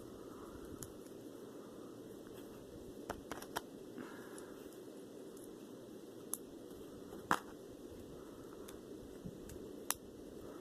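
Scattered sharp clicks of plastic LEGO pieces being handled and pressed together, the loudest about seven seconds in, over a steady low hiss.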